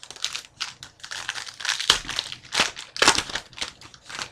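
Trading card pack wrapper crinkling and tearing as it is opened by hand, in a quick, irregular run of crinkles.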